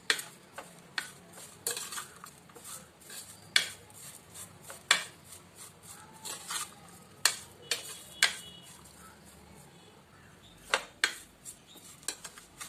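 A white plastic spoon stirring a dry grated mixture in a bowl, knocking and scraping against the bowl in irregular sharp clicks, with a lull a little past the middle.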